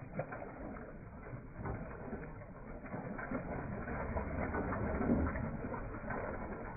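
Water gushing from a pump spout and splashing into a full tub, mixed with the clicking and clatter of the pump's mechanism.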